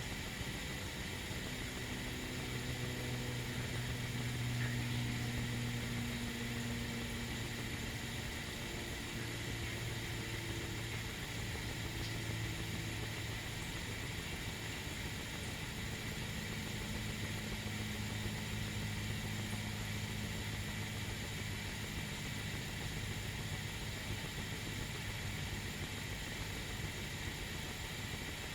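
Tea kettle heating on the stove, early on and far from the boil: a steady hiss with a low, slightly wavering hum underneath and no whistle.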